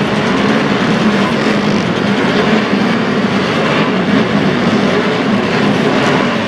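Vintage motorcycle engines, machines built before 1972, running at speed on a race circuit: a loud, steady, continuous engine sound with a low note that wavers slightly.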